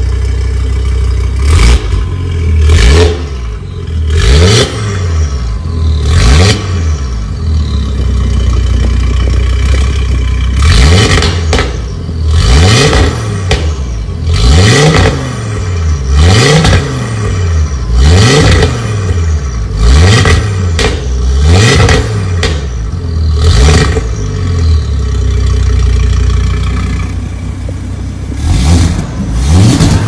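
Audi RS3 8V's turbocharged 2.5-litre five-cylinder engine through an Armytrix aftermarket exhaust, stationary and being revved: loud, sharp blips that rise and fall quickly, repeated many times, with spells of idle between the runs of revs.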